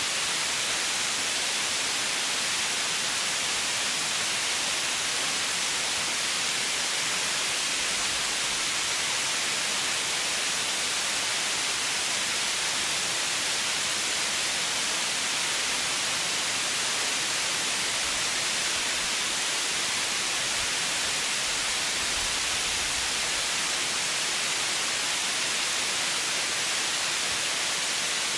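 Steady white noise: an even, unbroken hiss, brightest in the high range, with no change in level.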